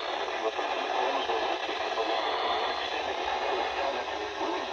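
Radio receiver playing a steady static hiss, with a faint, indistinct voice under it.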